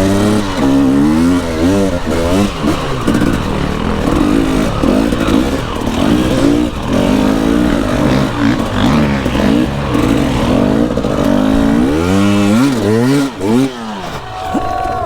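Enduro dirt bike engine ridden hard, its revs rising and falling over and over with the throttle, with the rattle and splash of the ride behind it.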